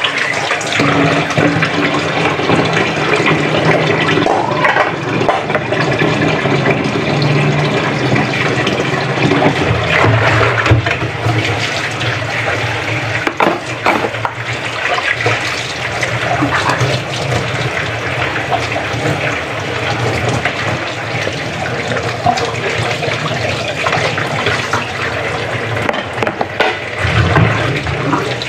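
Water from a kitchen tap running steadily into the sink and splashing as hands work under the stream, with a few knocks in the middle.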